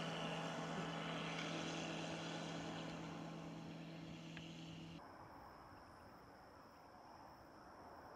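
Zenith CH701 light aircraft's Viking engine and propeller droning steadily overhead, fading as the plane climbs away. The drone cuts off suddenly about five seconds in, leaving faint hiss and a thin, steady high-pitched tone.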